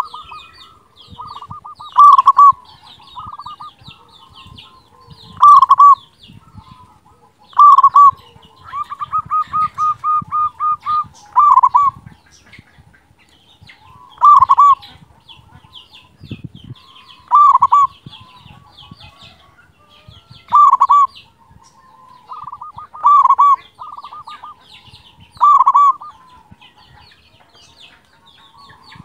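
Zebra dove (perkutut) cooing loudly in its deep 'kung' voice, a short call every two to three seconds, with a quick run of about nine short coos around the middle. Other small birds chirp faintly and high in the background.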